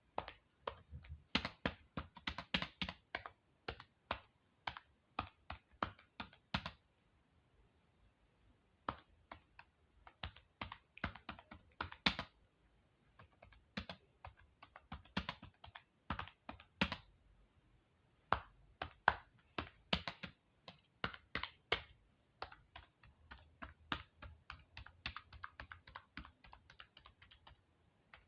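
Typing on a computer keyboard: quick, irregular key clicks in runs, with a couple of short pauses between them.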